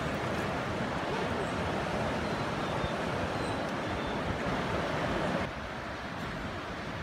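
Steady rush of white water from the Lachine Rapids of the St. Lawrence River. About five and a half seconds in it drops to a quieter, more distant rush.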